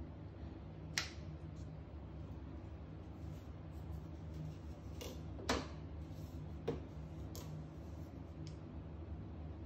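Quiet room tone with a steady low hum, broken by a few short sharp clicks, the loudest a little past halfway.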